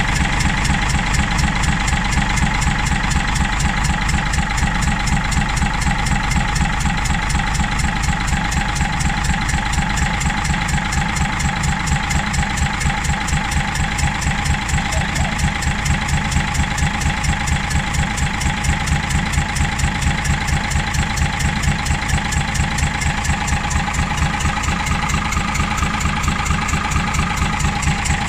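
Gardner 6LXB straight-six diesel bus engine idling steadily, running knocky and breathing heavily. The owners hope worn or damaged piston rings are the cause.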